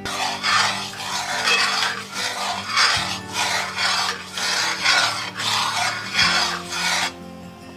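A utensil stirring gravy in a cast iron pot, scraping around the bottom in steady strokes, about two a second, that stop about seven seconds in.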